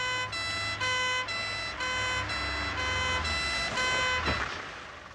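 Two-tone emergency-vehicle siren switching between a higher and a lower note about every half second, over a low engine rumble; it cuts off a little over four seconds in.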